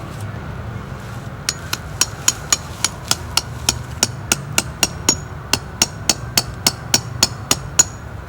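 A hammer striking a metal tent stake over and over, about four sharp, ringing hits a second, starting about a second and a half in.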